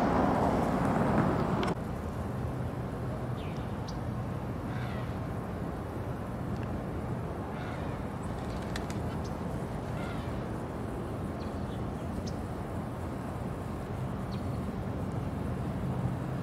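Outdoor ambience: a steady low mechanical hum with scattered short bird chirps. A louder rushing noise at the start cuts off suddenly a little under two seconds in.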